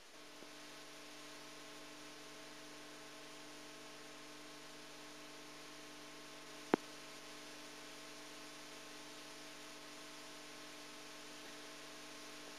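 Steady electrical mains hum with a layer of hiss, and a single sharp click about halfway through.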